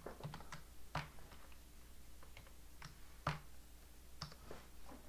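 Faint computer keyboard typing: scattered single keystrokes with short pauses between them, a couple of them sharper than the rest.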